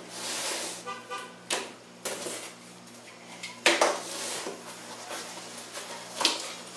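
Cardboard shipping box being opened by hand: packing tape slit with a blade and the flaps pulled apart, a run of scraping and rustling broken by a few sharp cracks and a brief squeak.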